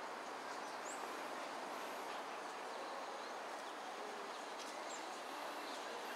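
Steady outdoor background noise, with a couple of faint, short, high bird chirps, one about a second in and another near five seconds.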